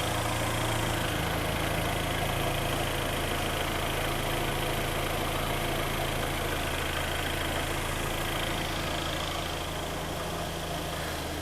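Freshly rebuilt Kia Sportage engine idling steadily while warming up, heard from underneath the car, where it sounds louder. The new pistons are still bedding in, so it runs a little loud and harsh. It gets slightly quieter near the end.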